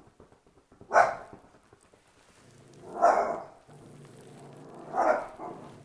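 Dachshund barking at a cat: three sharp barks about two seconds apart, with a low growl running between the second and third.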